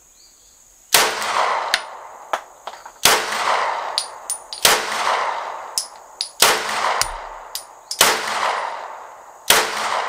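Six slow-fire shots from a Rost Martin RM1C 9mm compact pistol, spaced about one and a half to two seconds apart, starting about a second in, each ringing on for over a second. Between shots come small metallic clinks, the ejected brass casings landing.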